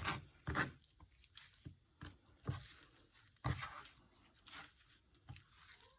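Hands mixing seasoned raw salmon and shrimp pieces in a bowl: irregular wet squishing and crunching sounds, about one a second.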